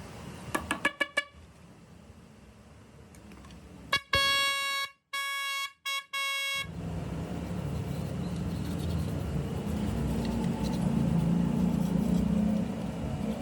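Repaired electric car horn being tested: a quick run of about five short toots, then a few seconds later four longer honks with brief breaks between them. A steady low noise follows.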